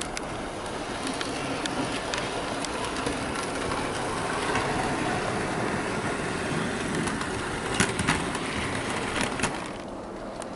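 Bachmann LBSC H1 Atlantic OO gauge model steam locomotive running light on layout track: a steady whir of its motor and wheels that grows louder in the middle and drops away near the end. A few sharp clicks come about two-thirds of the way through. It runs smoothly, with no grinding or stuttering.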